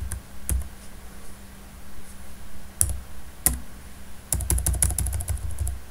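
Computer keyboard keys being pressed while editing code: a few separate keystrokes, then a quick run of rapid keystrokes from about four seconds in.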